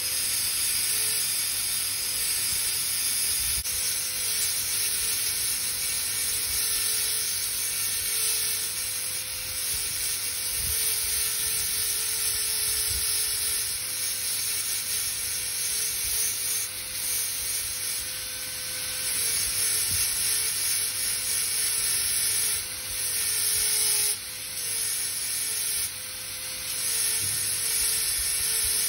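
High-speed dental handpiece running with a chamfer bur, cutting the axial wall of a typodont molar: a steady high hiss, with a couple of brief drops in level near the end.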